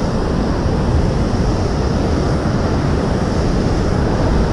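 Ocean surf breaking and washing over a rocky shore in a steady roar of noise, with wind buffeting the microphone.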